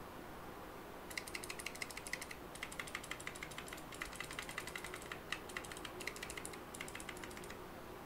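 Clicky blue mechanical key switches on a small six-key macropad being pressed rapidly: a fast run of sharp clicks in several bursts, starting about a second in and stopping shortly before the end. The keycaps sit on O-rings.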